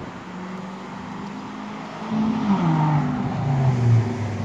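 An engine hums at a steady pitch. From about two seconds in it gets louder and its pitch drops in several steps.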